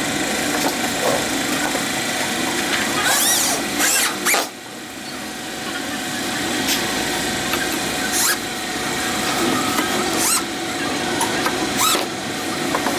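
Corded electric drill driving screws through a seat into a steel-pipe chair frame, the motor running with short squeals and clicks as the screws bite. The noise drops about four and a half seconds in and builds back up over the next couple of seconds.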